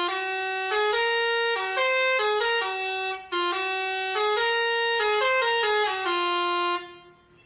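Bus telolet air horn driven by a Basuri melody module, playing a tune of held notes that step up and down. It plays in two phrases with a brief break a little past three seconds, and stops about seven seconds in.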